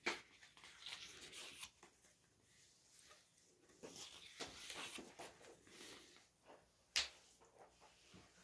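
Glossy pages of an album photo book being turned and handled, faint paper rustling in short stretches, with a sharp tap about seven seconds in.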